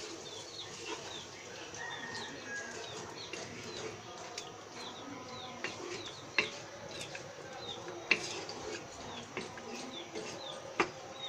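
A wooden spatula stirs chicken curry in a nonstick pan, with a few sharp taps against the pan. Throughout, a small bird chirps repeatedly in the background with short, high, quick notes.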